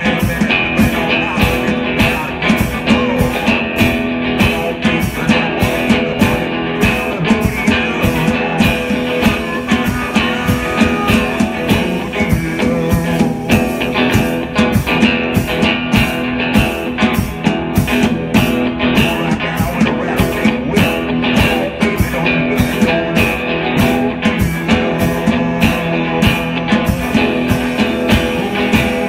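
Live two-piece blues-rock band playing: electric guitar over drums keeping a steady beat.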